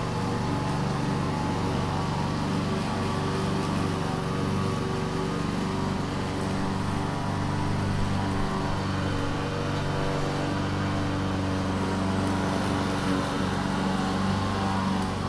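Lawn mower engine running steadily under load while cutting grass.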